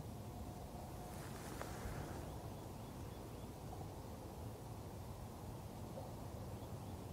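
Faint outdoor nature ambience: a low, steady rumble of background noise, a brief rustle about a second in, and a few faint high chirps.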